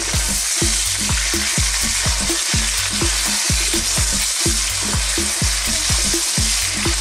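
Goat meat with onion, garlic and ginger sizzling in hot oil in a wok, a steady frying hiss, while a wooden spatula stirs and turns it as the meat browns.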